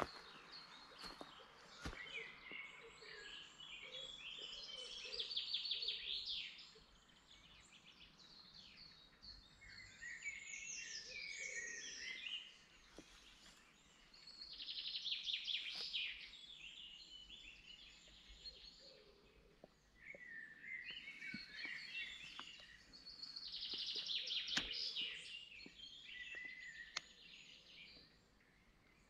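Songbirds singing in woodland: phrases of rapid trilled notes, each two to three seconds long, repeat every few seconds over a quiet background.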